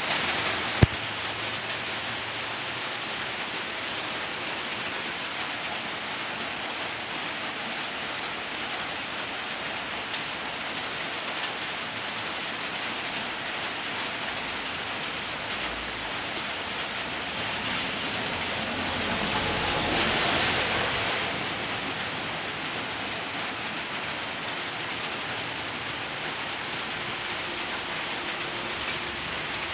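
Steady rushing noise that swells for a few seconds past the middle, with one sharp click about a second in.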